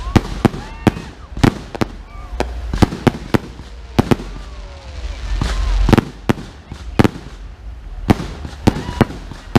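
Aerial fireworks bursting overhead: a rapid, irregular run of sharp bangs, about two or three a second. A rushing hiss swells to a loud bang about six seconds in.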